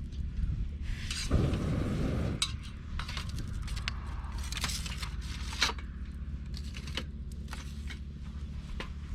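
Light clinks and clatter of metal cookware, dishes and utensils, over a steady low hum. A louder rustling scrape comes about a second in and lasts about a second and a half.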